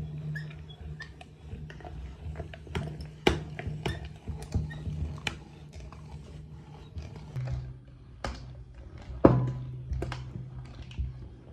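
Electric meat grinder's motor humming steadily while it grinds hard chocolate umbrella candies, with irregular crunching, clicks and cracks as the chocolate is crushed and pieces drop onto the plate. The hum drops slightly in pitch about seven seconds in, and there is one sharp crack about nine seconds in.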